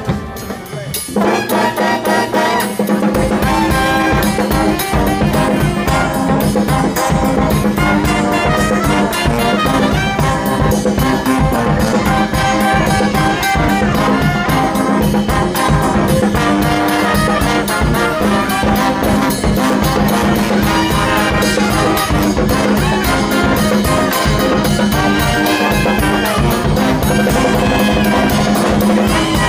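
A street brass band playing, with trumpets and trombones over drums. The music gets louder about a second in and then keeps up a steady, full sound.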